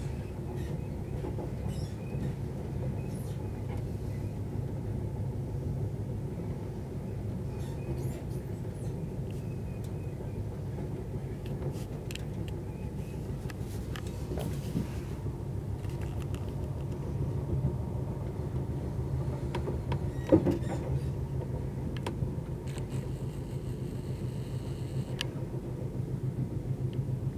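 Night Riviera sleeper train running on the rails, heard from inside the carriage: a steady low rumble with occasional faint clicks and one louder knock about twenty seconds in.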